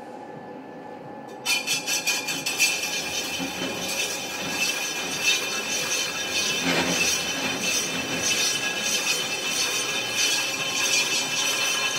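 Rim repair lathe cutting an aluminium wheel rim: a loud noisy sound with several steady high tones, starting suddenly about a second and a half in.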